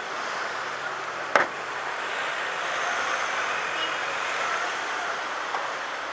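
City street traffic noise: cars and scooters running in slow, stop-start traffic. About a second and a half in comes one sharp knock or bang.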